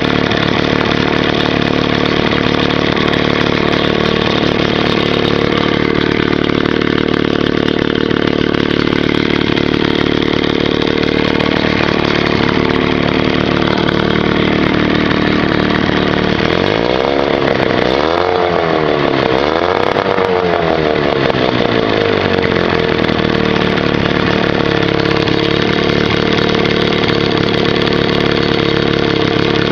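1977 Johnson 9.9 hp two-cylinder two-stroke outboard motor running steadily, its pitch rising and falling twice about two-thirds of the way through as it is revved and let back down.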